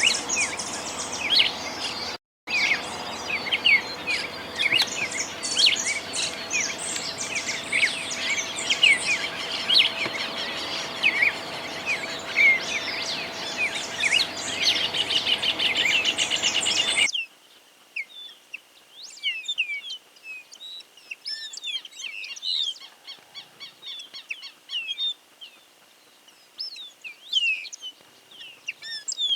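Tropical parula (pitiayumi) singing: a dense run of high chirps and trills over a faint steady hum, with a brief gap about two seconds in. At about seventeen seconds it cuts sharply to a quieter recording of scattered high chirps.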